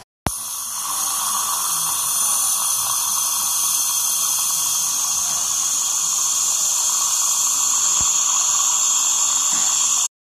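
High-speed dental drill whining steadily at a high pitch while working on a lower molar.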